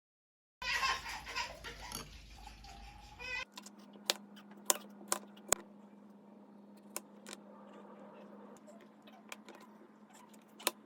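An infant babbling and giggling for about three seconds. Then a steady low hum with a dozen or so scattered sharp clicks.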